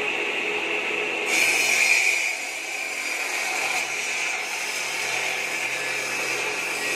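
Mini bamboo-cutting machine's 12-inch circular saw blade, driven by a half-horsepower electric motor, running with a steady whine. About a second in it turns louder and harsher for about a second as the blade cuts into wood, then settles back to a steady run.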